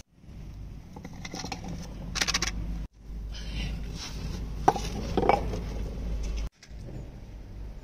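Small terracotta pot and its clay lid being handled, making a few light clinks and knocks of fired clay against clay. The sharpest knock comes about two-thirds of the way through, over a steady low rumble.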